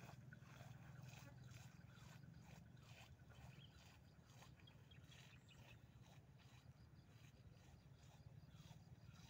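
Near silence: faint outdoor field ambience, a low steady rumble with scattered faint ticks.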